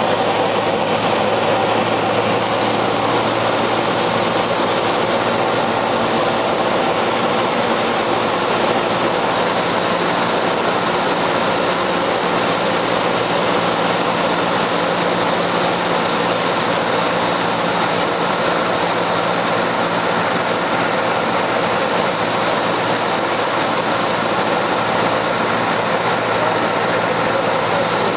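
Cessna 172's piston engine and propeller running at a steady power setting, heard as a constant drone inside the cockpit.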